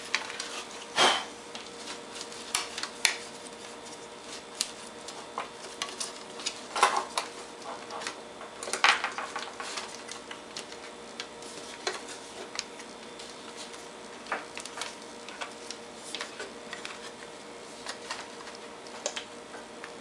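Irregular plastic clicks, taps and rattles as an Akai MPK Mini's circuit board and its tie-wrapped USB cable are worked into the plastic case, with a few louder knocks, over a faint steady hum.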